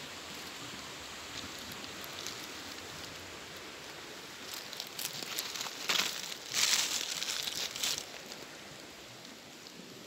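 Crunching and clattering of river pebbles underfoot, several loud crunches from about four and a half to eight seconds in, over a steady hiss of flowing creek water.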